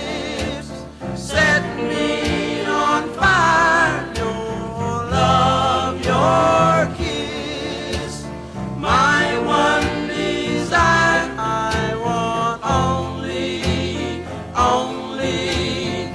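Oldies soul record playing: sung vocal lines with vibrato over a band with a steady drum beat.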